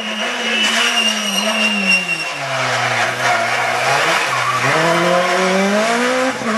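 Suzuki Swift rally car's engine passing close by. The revs drop as it slows in the middle, then climb steadily as it accelerates away. A thin, high squeal sounds over the first two seconds.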